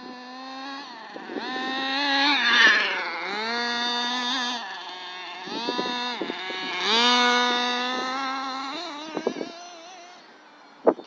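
FTX Carnage nitro RC truck's small glow-fuel engine running with a high-pitched whine, revving up and easing off in two long sweeps, then fading. A single sharp click comes near the end.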